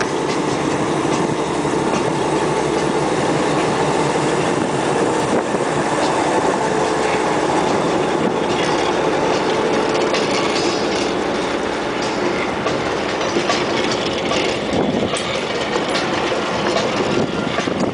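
Lxd2 narrow-gauge diesel locomotive running as it passes close by, its engine steady and loud, then its train of passenger coaches rolling past with the wheels clicking over the rail joints.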